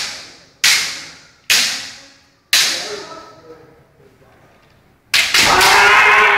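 Sharp cracks of bamboo kendo shinai striking, four in the first two and a half seconds, each ringing out in the hall's echo. About five seconds in, a loud sustained kiai shout starts as a player goes in for the strike.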